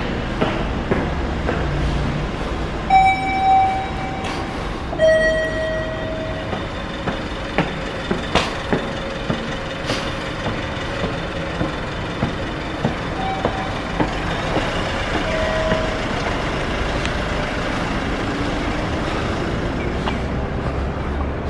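A two-note electronic chime, a higher note then a lower one about two seconds apart, sounding twice, the second time fainter, over a steady low rumble. Footsteps on stone stairs tick in between, and an engine rises in pitch near the end.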